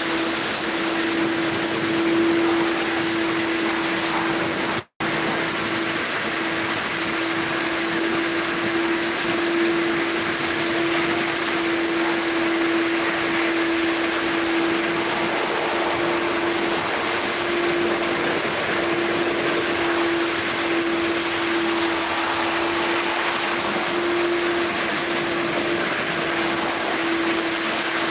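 A motor running steadily: a constant hum with one clear steady tone over an even hiss. The sound cuts out for a split second about five seconds in.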